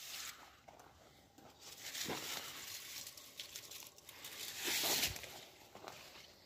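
Grapevine leaves rustling as a hand pushes through the foliage, with a louder rustle about five seconds in.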